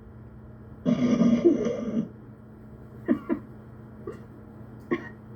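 A person's rough, throaty vocal noise lasting about a second, starting about a second in, like a cough or throat clearing. A few short, faint vocal sounds follow over a low steady hum.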